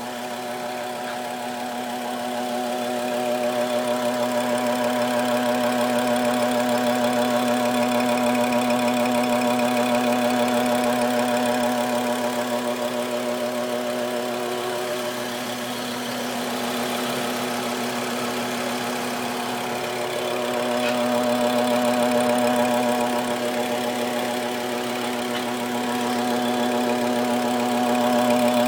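A vehicle engine running with a steady humming drone, its loudness swelling and easing a few times.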